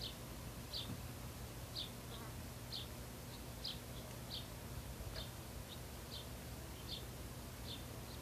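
Short high chirps from an unseen animal, recurring irregularly about one to two times a second, over a low steady hum.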